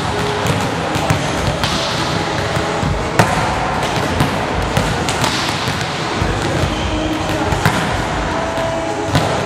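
Volleyballs being hit and bouncing on a hard court floor: irregular sharp smacks, the loudest about three seconds in, over steady background noise.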